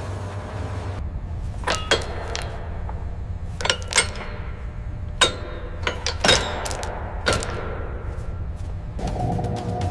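Sharp metallic clanks and clinks, about nine strikes between roughly one and a half and seven and a half seconds in, several ringing briefly. A steady low rumble runs underneath.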